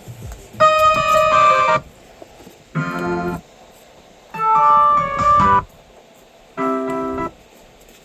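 Synthesized electronic-keyboard Christmas tune from a Mr Christmas Lights and Sounds of Christmas music box, playing in four short phrases with pauses of about a second between them.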